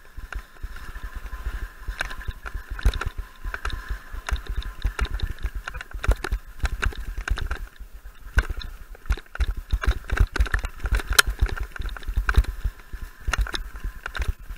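A bike ridden fast down a rough dirt singletrack: steady rattling with many sharp knocks from bumps in the trail, and low buffeting of wind on the camera microphone.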